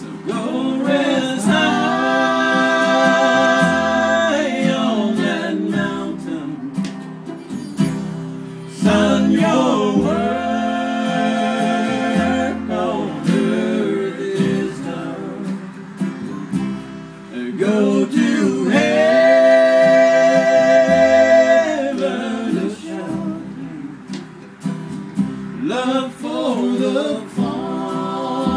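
Live acoustic country trio playing a slow ballad: strummed acoustic guitar and upright bass under long held melody notes from fiddle and singing voice, in phrases of a few seconds.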